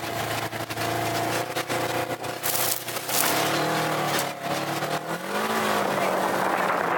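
Polaris RZR 900 side-by-side's twin-cylinder engine running under way on desert dirt, its pitch rising a little past halfway as it speeds up. Frequent short knocks and rattles sound over the engine.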